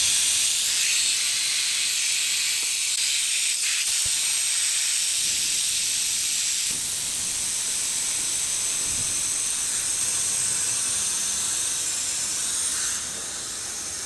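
Compressed air hissing steadily as it is released from the tanks of a Husky twin-tank air compressor through an open valve. The hiss drops to a quieter level near the end.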